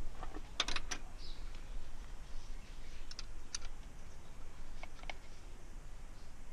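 Scattered light clicks and taps of engine parts being handled by gloved hands: a quick cluster of clicks about half a second in, a few more around three seconds, and two near five seconds.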